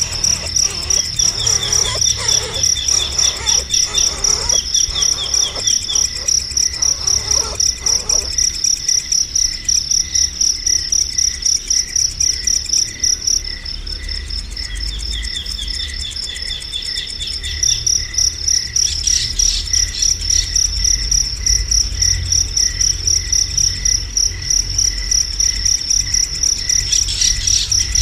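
Crickets chirping in a steady, rapid pulse, with a bird's short fast trills in the first few seconds and again around the middle.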